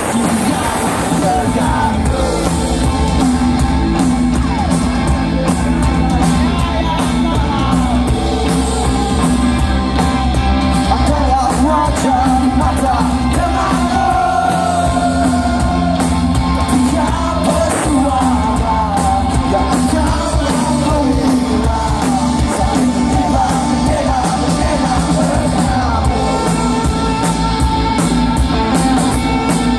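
Rock band playing live with a lead voice singing, heard from within the crowd at an outdoor concert.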